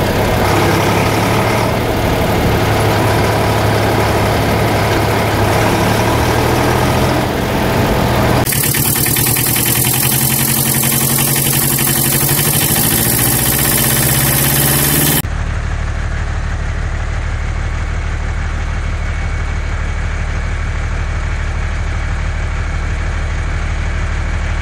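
Vehicle engine running steadily, a recorded engine sound laid over toy-vehicle footage. The sound changes abruptly twice, about a third of the way in and just past halfway, where the recording is cut.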